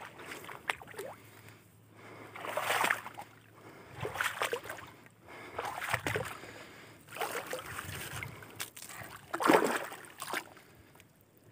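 Intermittent splashing and rustling of shallow pond water and waterside weeds, coming as about six irregular swishes of half a second to a second each.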